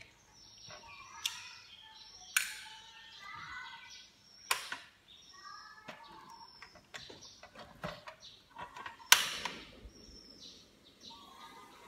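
Small birds chirping in the background, with a few sharp clicks or knocks; the loudest click comes about nine seconds in.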